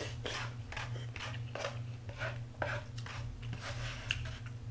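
Close-miked eating from a bowl of cold raw-fish soup: a run of short slurps, spoon clicks and chewing sounds, about three a second, over a steady low hum.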